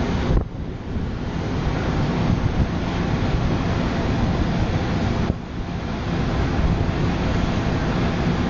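Wind buffeting the microphone over a steady low rumble and sea noise. The sound drops away suddenly and briefly twice, about half a second in and just past halfway.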